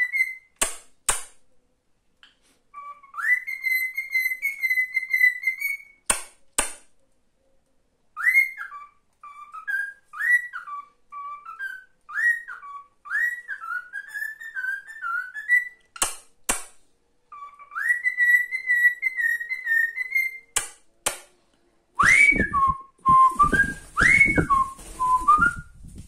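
Male cockatiel whistling a learned tune in phrases: long held notes and repeated quick upward swoops. Pairs of sharp clicks fall between phrases, and a low rumbling, rustling noise joins the last phrases near the end.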